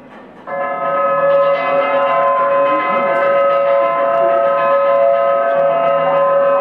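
Loud, steady ringing of a bell-like metal tone with many overtones, starting suddenly about half a second in and held without fading.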